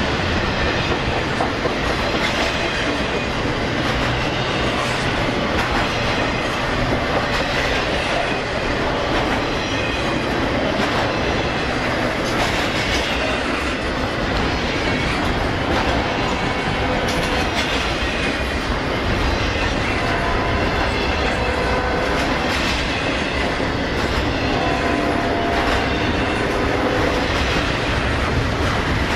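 Double-stack intermodal freight train's container well cars rolling past: a steady rumble of steel wheels on rail with repeated clicks as the wheels cross rail joints.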